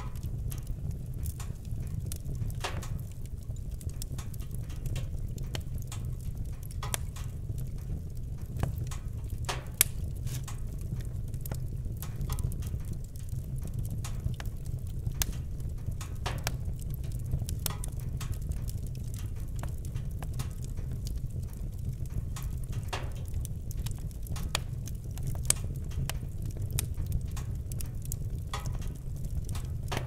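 Wood fire crackling: irregular sharp snaps and pops over a steady low rumble, with a louder pop about a third of the way through and another near the end.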